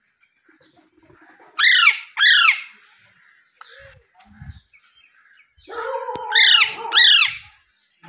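Pet Psittacula parakeets (rose-ringed and Alexandrine) screeching: two loud, sharp calls that fall in pitch about a second and a half in. Around six seconds a lower, more even call is joined by two more falling screeches.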